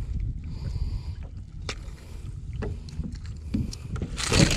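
Wind rumbling on a body-worn camera microphone aboard a boat, with a few light knocks and a rustling burst near the end.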